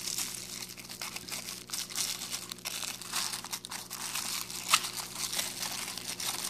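Pink anti-static bubble wrap crinkling and crackling as it is handled and pulled out of a small cardboard box, with one sharper click a little before five seconds in.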